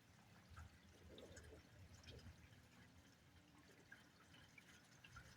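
Near silence with faint, scattered drips of rain.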